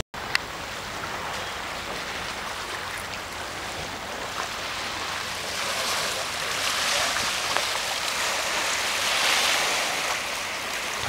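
Small waves washing and lapping against a rocky, pebbly shore: a steady hiss of moving water that swells a little a couple of times. A brief click comes right at the start.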